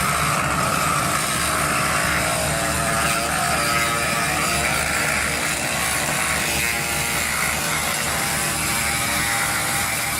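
Borewell drilling rig running steadily: a dense, fast mechanical rattle over engine noise.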